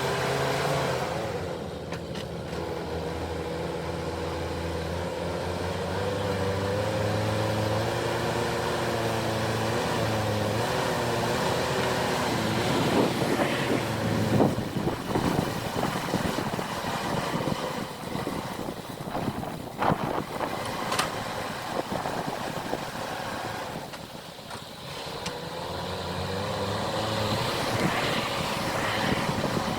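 JCB 4CX backhoe loader's diesel engine running hard under hydraulic load while it digs, its pitch sagging and rising as the arm works. Around the middle there is a spell of knocks and clatter from the digging.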